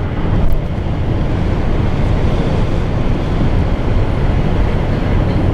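Steady road and wind noise inside a car driving at speed, loud and even, heaviest in the low end.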